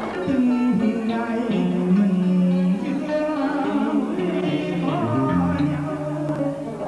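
A man singing a slow melody over instrumental accompaniment, holding long notes that step from pitch to pitch.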